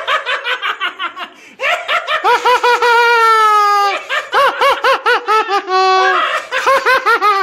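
High-pitched laughter in quick, evenly repeated bursts of "ha", with one long held note sliding slowly downward about two to four seconds in.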